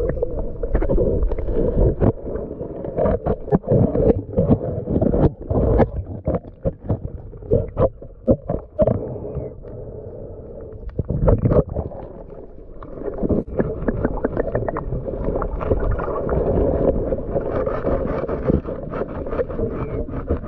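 Muffled underwater sound from a submerged camera in shallow water: a low rumble of moving water with many irregular knocks and clicks. It goes quieter for a few seconds about halfway through, then the rumble returns.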